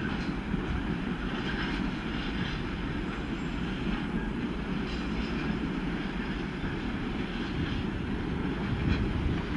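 Container freight train rolling away along the track: a steady rumble of wagon wheels on the rails that holds at an even level.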